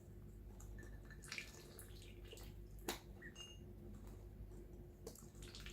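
Faint dabbling and dripping of ducklings feeding, their bills working at food in shallow water, with scattered small clicks and one sharper click about three seconds in.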